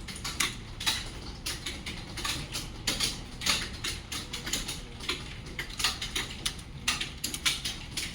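Rapid, overlapping clatter of many computer keyboards as several students type at once, keystrokes clicking irregularly without pause.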